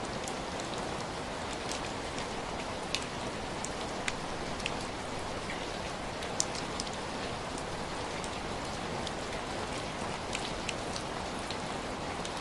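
Steady rain falling, with scattered individual drops ticking sharply close by.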